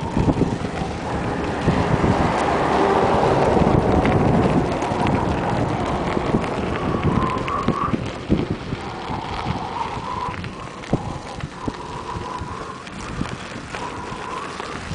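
A GT Avalanche 2.0 mountain bike ridden over a gravel road: tyres crunching and the loaded bike rattling and clattering, with wind buffeting the microphone. A few brief squeaks come in the second half.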